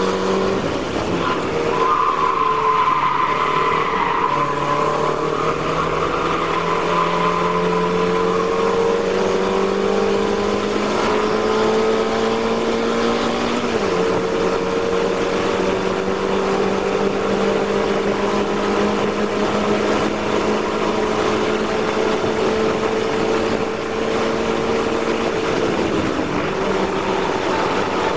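Mazda MX-5 race car engine heard from inside the cockpit, pulling hard with the revs climbing slowly. It upshifts about 14 seconds in and the revs climb again before dropping near the end as the driver lifts. Tyres squeal briefly a couple of seconds in.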